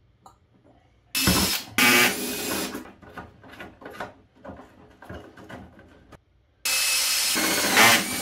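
Cordless drill running in two stretches, about a second in and again near the end, drilling into the wall of a plastic electrical enclosure. Light handling clicks come between the stretches.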